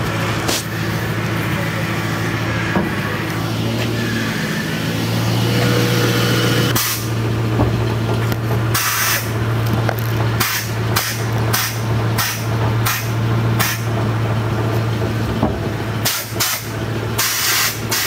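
Engine idling with a steady low hum while the steering is turned for a turning-radius check. From about seven seconds in, a series of short hissing bursts comes with the steering being worked.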